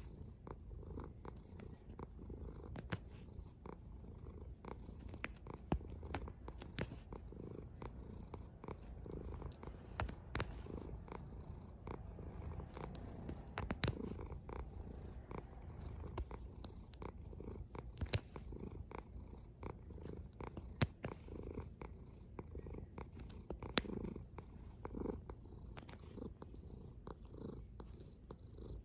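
Domestic cat snoring in its sleep: a low, continuous rumble with scattered short clicks.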